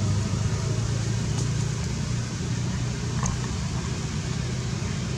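Steady low background rumble, with two faint ticks about a second and a half and three seconds in.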